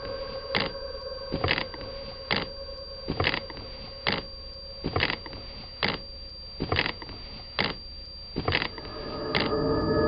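Suspense sound design from a horror TV drama: a held drone with sharp, evenly spaced knocks about once a second. The drone swells and thickens near the end.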